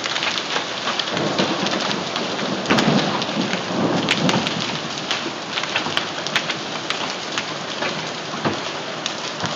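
Heavy hail and rain pelting down, a dense steady din full of sharp clicks of stones striking. A low rumble of thunder swells between about 2.5 and 4.5 seconds in.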